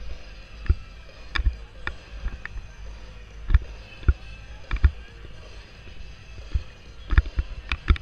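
Footsteps crunching on snow at an uneven walking pace, about one to two steps a second, over a steady low rumble.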